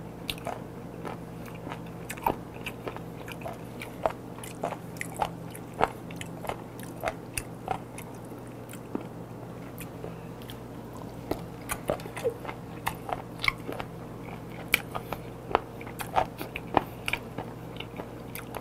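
Close-up eating sounds of raw beef-and-octopus tangtangi and seasoned raw chicken feet: biting and chewing, many short clicks and crunches at irregular intervals.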